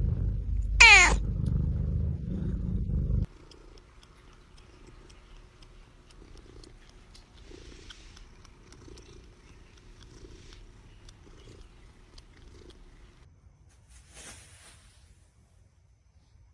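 A cat purring softly and rhythmically close to the microphone, about one breath pulse a second. Before it come three seconds of loud low rumble, cut about a second in by a sharp whistle-like sound falling steeply in pitch. A brief rustle comes near the end.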